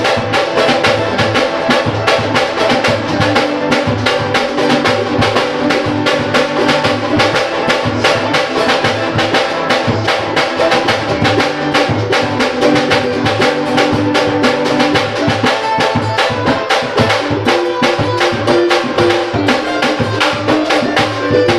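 Samba-pagode band playing an instrumental passage with no singing: dense, fast, even percussion over a moving bass line and held melody notes.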